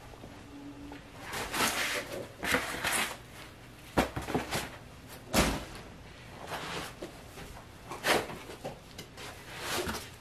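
Handling noises from the plastic wash-and-cure machine and its foam packing: a string of short rustles, scrapes and knocks as parts are fitted and the foam is moved, with one heavier thump about halfway through.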